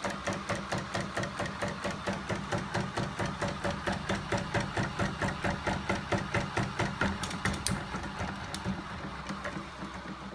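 Homemade battery-and-electric-motor-driven crank-and-spring flapping-wing mechanism running fast: an even mechanical clatter of about four knocks a second over a steady motor hum. The knocking grows weaker near the end.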